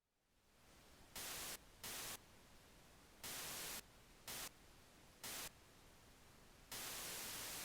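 Static hiss with loud bursts of white noise cutting in and out abruptly, six times, the last burst the longest.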